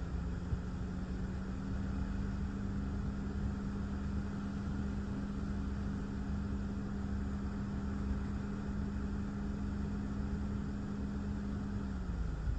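Thunderstorm outflow wind and rain heard from inside a car, with low rumbling wind buffeting and a steady hiss. A steady hum runs alongside, dropping slightly in pitch and cutting off near the end.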